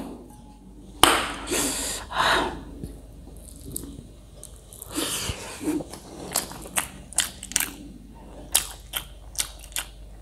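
Close-miked chewing of rice and pork, with wet mouth smacks and clicks that come quickly in the second half.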